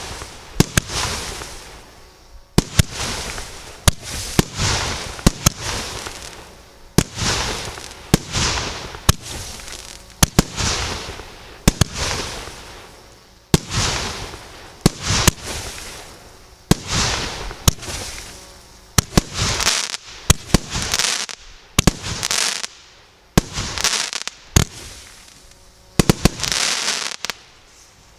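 Firework battery (cake) firing shot after shot. Each sharp bang trails off over about a second, and a new one comes roughly every one and a half seconds.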